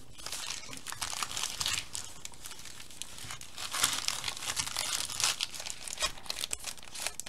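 Wrappers of sealed trading card packs crinkling and crackling as a stack of packs is handled and reshuffled, a pack swapped into it.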